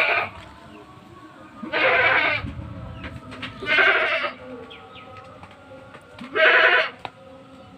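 Goats bleating: three loud bleats, each under a second long, about two seconds apart.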